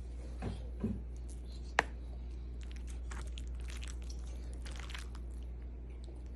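A utensil clicks once sharply against the dish, with soft crunching and scraping from the baked macaroni and cheese as it is scooped into and tasted. A low steady hum runs underneath.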